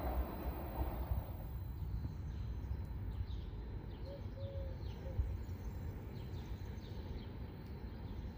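The noise of a train dies away about a second in. Then comes open-air ambience by empty railway tracks: a low steady rumble with scattered bird chirps.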